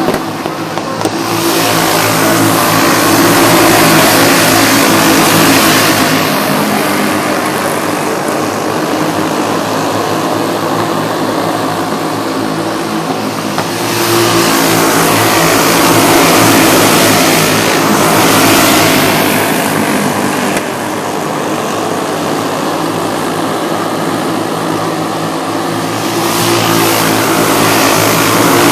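A pack of racing go-kart engines running at high revs, swelling louder three times as the field passes close by and easing off in between.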